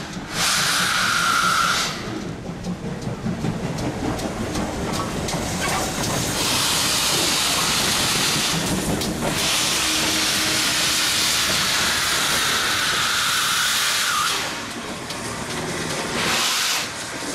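Bagnall industrial saddle-tank steam locomotive venting steam with a loud, steady hiss as it moves slowly along, with a high whistle note in the hiss for about the first two seconds. From about 2 to 6 seconds in, the hiss drops away and uneven exhaust chuffs and knocks come through, before the hissing returns for most of the rest.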